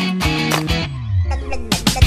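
Background music with sustained notes and repeated sharp beats.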